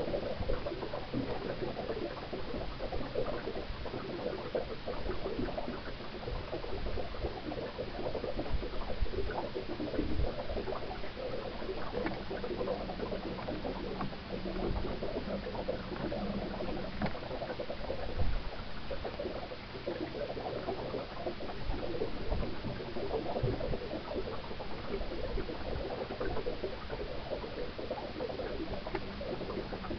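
Water sloshing and splashing against the hull of a small boat under way on electric trolling-motor power, with a faint steady hum from the motor. A single sharp knock comes about eighteen seconds in.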